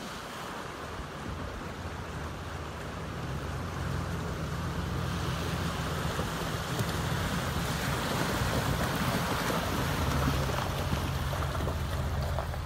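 Toyota Tundra pickup driving through a shallow, rocky stream: water rushing and splashing around the tyres over the low sound of the engine. It grows louder as the truck comes close and drives past.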